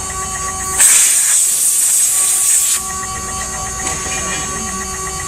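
CNC router running with a steady whine, and a loud hiss lasting about two seconds that starts about a second in.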